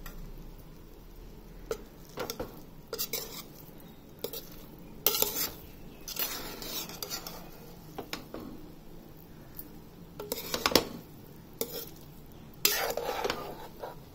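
A spatula stirring and turning cooked biryani rice in a pot, with irregular scrapes and knocks against the pot. The loudest come about five seconds in, near eleven seconds, and in a longer run near the end.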